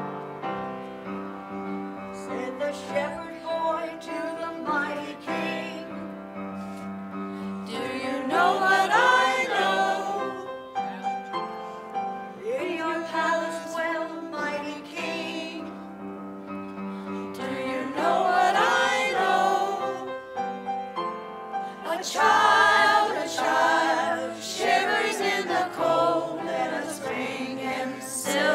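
A mixed choir of men's and women's voices singing, swelling louder several times.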